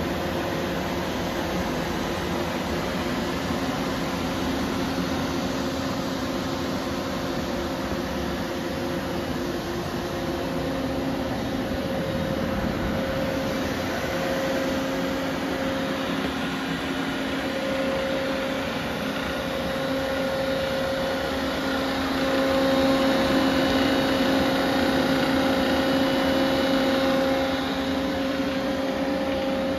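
Steady hum of a powered-up Doosan Z290SMY CNC turn-mill: cooling fans and motors running, with two steady tones, one low and one an octave above, that drop out and come back. The sound grows louder for a few seconds about three-quarters of the way through.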